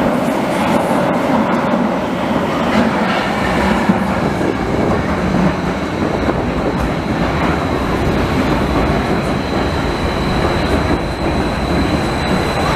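Vienna U-Bahn train pulling into an underground station: a steady loud rumble of wheels on rail with clickety-clack. A thin high whine comes in during the second half as the train slows.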